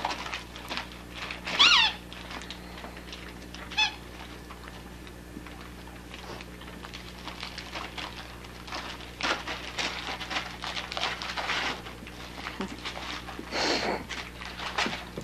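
Dogs tearing and rustling Christmas wrapping paper off a present, with a sharp falling squeak just under two seconds in and a shorter squeak about two seconds later. The paper crackles in bursts in the second half.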